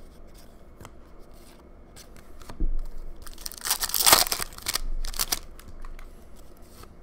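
A hockey card pack's wrapper being torn open: a loud crinkling rip about three and a half seconds in, then a shorter rip a second later. Before it come a thump and light clicks of cards being handled.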